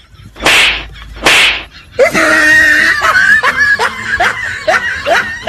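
Comedy sound effects added in editing: two short swishing hits a little under a second apart, then a comic effect with quick rising notes repeating a few times a second.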